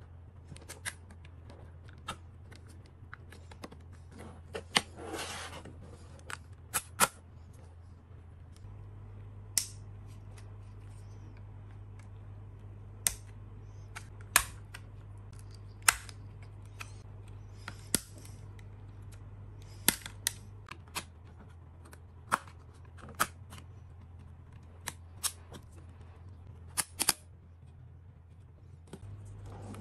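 Sharp clicks and snaps of a DJI Mini 3 Pro drone's plastic shell clips being pried loose with a metal pick, one every second or two, with a short scrape about five seconds in. A faint low hum runs underneath.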